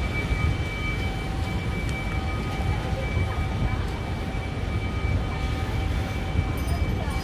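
Steady low rumble of street traffic, with several thin steady high tones running through it.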